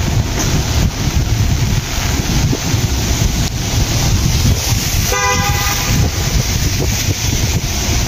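Wind rumbling on the microphone with a steady noise. About five seconds in, a vehicle horn gives one short toot.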